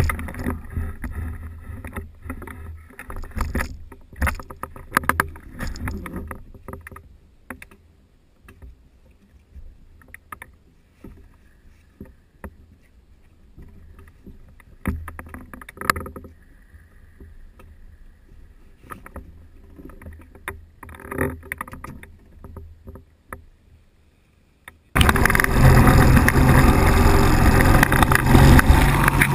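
Knocks, creaks and rustling from people moving about and climbing into the seats of a weight-shift microlight trike, close to its frame. About 25 seconds in, a loud steady engine drone starts suddenly: the trike's engine running.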